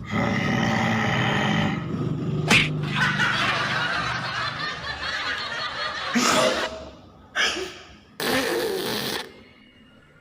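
A person coughing in strange, comic bursts several times.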